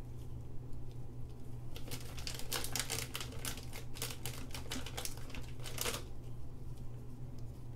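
Clear plastic bag crinkling and rustling as gloved hands dig white soap balls out of it, a dense run of crackles from about two seconds in until about six seconds, over a steady low hum.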